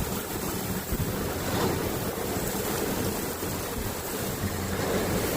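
Heavy rain falling in a steady dense hiss, with wind buffeting the microphone.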